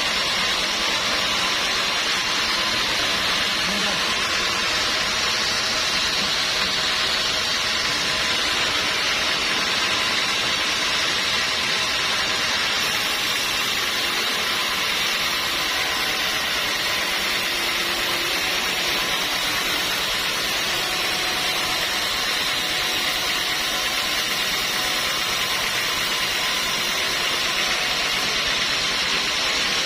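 Sawmill machinery running with a steady, unbroken hiss.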